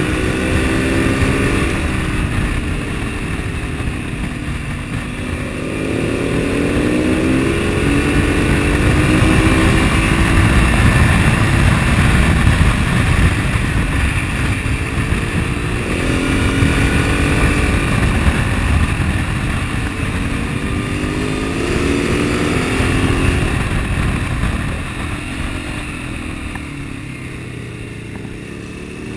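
Husqvarna TR650 Terra's single-cylinder engine riding through curves, its pitch rising and falling again and again as the rider opens and closes the throttle. A heavy low wind rumble on the bike-mounted camera lies under it.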